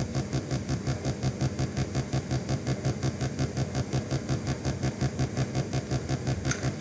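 A low buzz pulsing evenly, roughly seven times a second, with nothing else over it.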